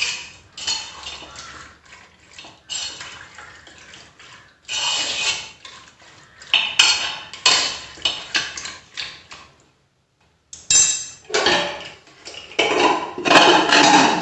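Raw chicken pieces being mixed by hand inside a metal pressure cooker: repeated wet scraping and clinking against the pot. Louder clattering near the end as the pressure cooker lid is put on.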